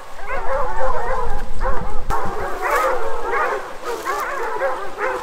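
A pack of bear hounds baying on a bear, many overlapping voices calling continuously. A low rumble comes through about a second in.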